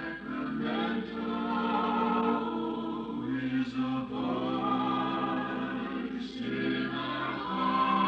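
Mixed vocal group singing a radio jingle in close harmony: long held chords that shift every second or two.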